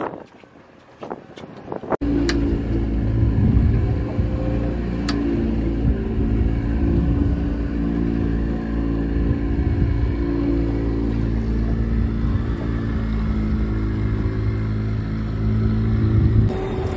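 Yamaha outboard motor running at a steady speed, pushing the boat along with a fishing line out. It comes in about two seconds in after a quieter start with a few clicks, and holds several steady low tones.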